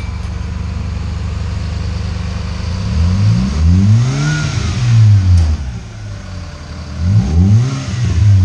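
Hyundai HB20's 1.6 four-cylinder engine idling steadily through a sport exhaust with a carbon-steel muffler, with a deep note. About three seconds in it revs up once and falls back, and near the end the throttle is blipped in a few quick short revs.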